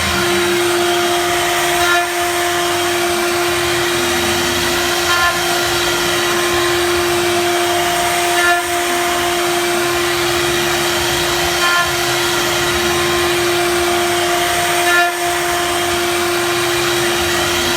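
Four-axis CNC router spindle carving wood, running with a steady whine over the hiss of the cut. About every three seconds a brief, slightly louder pulse of higher tones comes as the machine moves through its passes.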